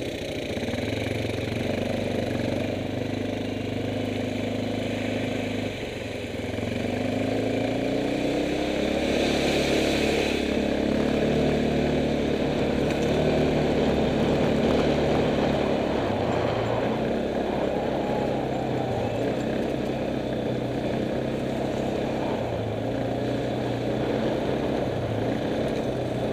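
Kymco MXU 500 quad bike's single-cylinder engine running under way. The pitch climbs as it accelerates about seven seconds in, then holds and later eases off and picks up again several times with the throttle.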